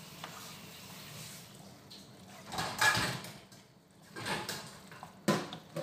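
A frying pan of spaghetti being tossed and shifted about on a gas stove's metal grate: three short clattering scrapes, the loudest about two and a half seconds in, the others about four and five seconds in.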